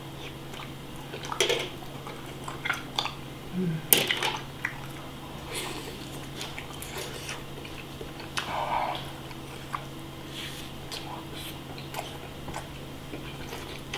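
Close-up eating sounds: biting and chewing soft skewered fish cake, with scattered clicks and knocks of the wooden skewers and bowl, the sharpest about four seconds in.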